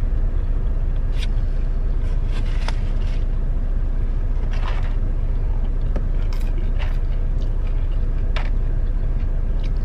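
Steady low rumble of the semi-truck's engine idling, heard inside the cab, with a scattering of short clicks and smacks from eating.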